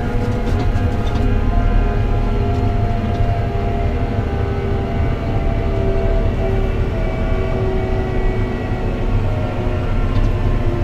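Fendt tractor's engine running steadily at road speed, heard from inside the cab while towing a loaded trailer, with a few light rattles about half a second in.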